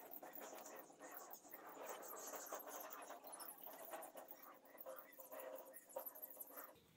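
Faint scratchy rubbing of a hand smoothing wet mud plaster over the top of a mud-brick pigeon house. It stops abruptly just before the end.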